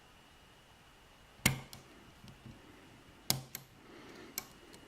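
Sharp metallic clicks from picking a 5-pin T-KEY euro cylinder lock, as the pick and pins work in the keyway. Three distinct clicks, the loudest about a second and a half in, with fainter ticks between.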